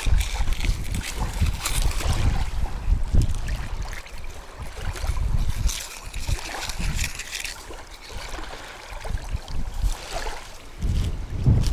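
Wind buffeting the microphone in uneven gusts, with a patchy higher hiss over it.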